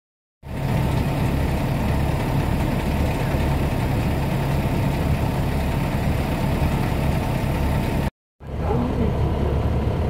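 Drill rig's engine running steadily at a construction site. The sound drops out for a moment about eight seconds in, then carries on.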